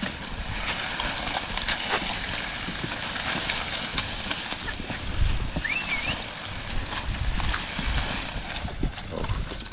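Cows pulling a plough through a field: irregular hoof steps and knocks against a steady outdoor haze, with a short whistle about six seconds in.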